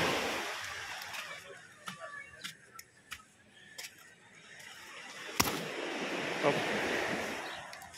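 Folding umbrella being closed: the canopy fabric rustles in swells, with a few light clicks from the frame and one sharp snap about five and a half seconds in as the ribs fold down.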